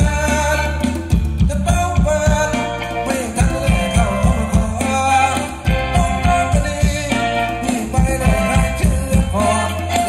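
Live Thai ramwong dance music played over loudspeakers: a singer over a steady bass line, with drums and hand percussion keeping a regular dance beat.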